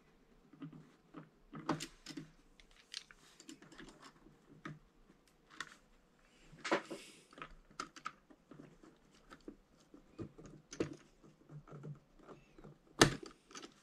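Small plastic clicks, taps and scrapes as the top of an Alps key switch on an MSX keyboard is worked loose by hand, with a brief scraping rustle about seven seconds in and one sharper, louder click about a second before the end.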